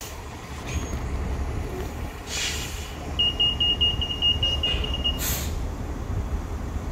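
2010 New Flyer D40LF transit bus with its Cummins ISL9 diesel running with a low steady rumble, two short hisses of released air about two and a half and five seconds in, and a rapid high beeping, about five beeps a second, for about two seconds between them.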